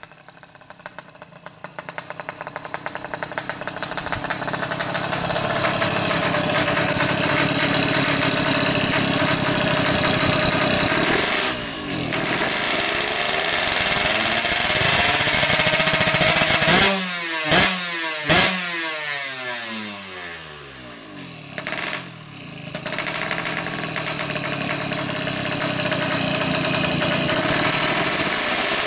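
Yamaha F1ZR's tuned 116cc two-stroke engine, coming closer and growing louder, then running at a high, steady speed. About two-thirds of the way through, the throttle is blipped sharply twice and the revs fall away, nearly dying, before the engine picks up and runs on.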